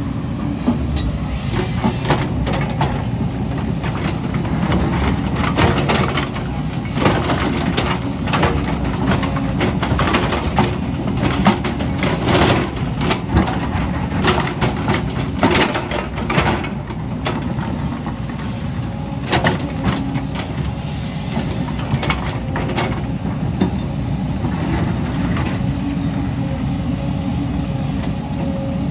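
Excavator engine running steadily, with frequent sharp knocks and clatter over the first two-thirds that then thin out.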